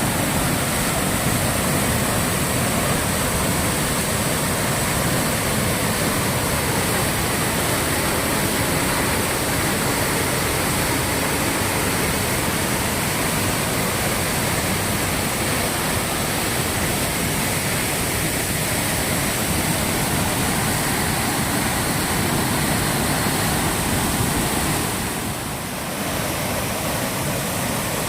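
Waterfall: falling water making a steady, loud rush that dips briefly near the end.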